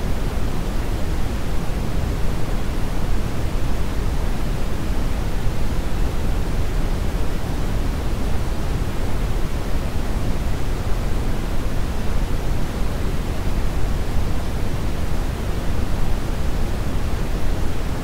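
Brown noise test signal: a steady, unchanging deep rushing hiss, loudest in the bass and falling off toward the treble (6 dB per octave).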